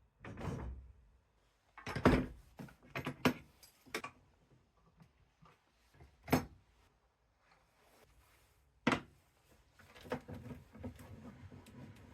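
Workshop handling sounds: a series of separate knocks and clunks of wooden parts and tools being picked up and set down, the loudest about two seconds in, followed near the end by a stretch of softer rustling and small taps.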